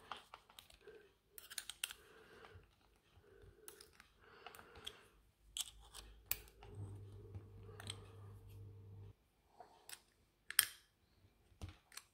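Small open-ended spanner clicking and scraping on the nut and metal housing of an angle-grinder oscillating-tool adapter as the nut is tightened: scattered light metallic clicks and taps with handling rustle. A faint low hum comes in for a couple of seconds midway.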